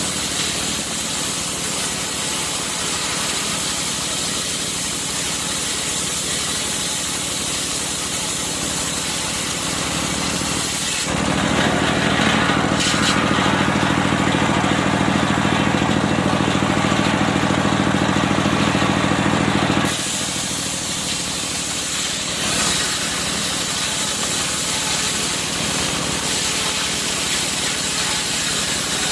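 Engine of a circular sawmill running steadily, growing louder and fuller for about nine seconds in the middle before settling back.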